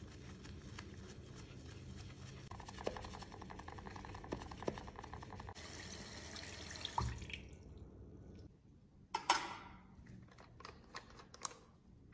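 Tap water running and splashing over a plastic compact case in a sink while it is scrubbed with a brush and rinsed. The water stops about eight and a half seconds in, followed by a few sharp clicks and knocks.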